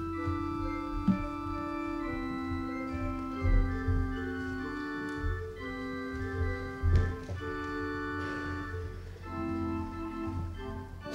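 Church organ playing slow, held chords, the notes changing every second or two. A few dull thumps of footsteps sound under it.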